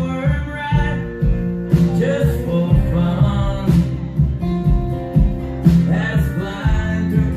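Live country-rock band playing a song: acoustic guitar strumming, electric guitar lines and drums with a steady beat, heard from the audience.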